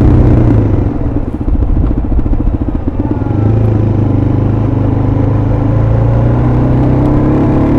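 Suzuki DR-Z400SM's single-cylinder four-stroke engine riding along. About a second in it drops off throttle to a loping, pulsing note, then picks up again after about three seconds and holds a steady cruise, rising slightly near the end.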